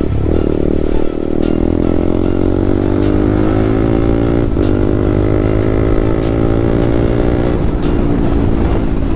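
Yamaha MT-15's single-cylinder engine through a loud aftermarket exhaust, under hard acceleration: the note climbs steadily through the revs for several seconds, dips briefly about halfway through, then drops away as the throttle closes near the end.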